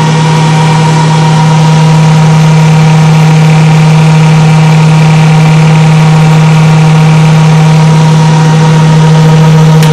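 Electric motor of a homemade wooden jointer running steadily, driving the cutterhead through a belt and pulleys, with a loud, even hum and little vibration. A single click sounds near the end.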